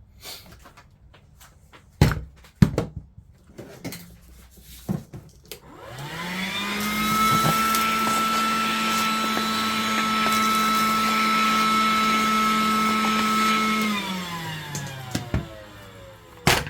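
Electric power-tool motor spinning up about six seconds in, running at a steady pitch for about eight seconds, then coasting down, as the first bench-dog hole is cut in the table top. A few knocks and clicks of handling come before it, and a sharp knock near the end.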